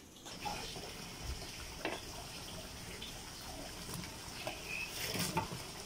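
Potatoes and tomato pieces frying in a wok, a steady sizzle with a few short taps and scrapes of the spatula against the pan around two seconds and five seconds in.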